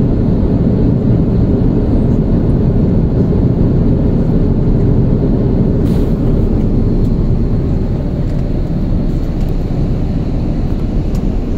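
Steady airliner cabin noise, the engines and rushing airflow of a jet descending on its landing approach, heard inside the cabin. There is one brief click about six seconds in.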